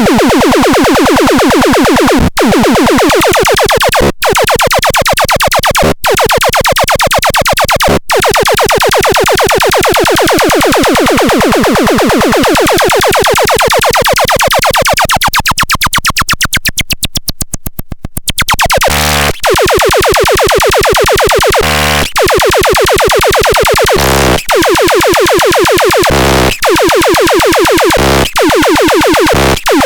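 Electronic synthesizer sound demo: a loud, buzzing synth tone pulsing very fast, broken by short gaps about every two seconds. Its tone sweeps down and back up midway, thins out briefly after that, and the gaps come quicker near the end.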